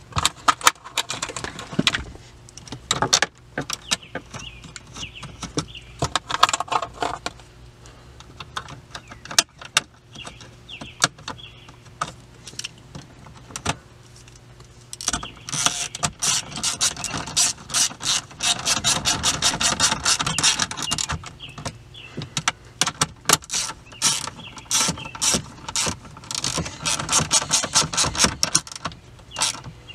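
Hand ratchet clicking rapidly in two long spells while fasteners in the console around the shifter are run in. Knocks and clicks of plastic centre-console trim being handled come between the spells.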